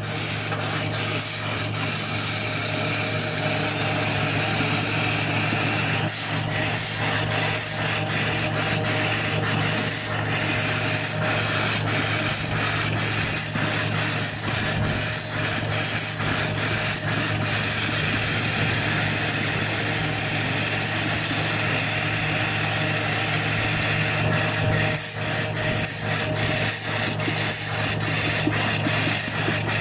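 Wooden dal masher churning cooked lentils in an aluminium pot, rubbing and swishing through the thick dal with irregular small knocks against the pot, over a steady hiss and low hum.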